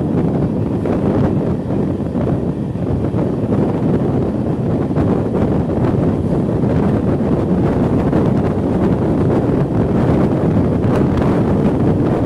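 Steady wind buffeting the microphone on a moving passenger train, over the continuous running noise of the coaches on the track.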